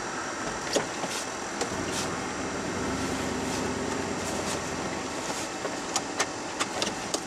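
Truck idling at a stop, heard from inside the cab over a steady heater-fan hiss. A low rumble swells from about two to five seconds in, and light clicks come now and then.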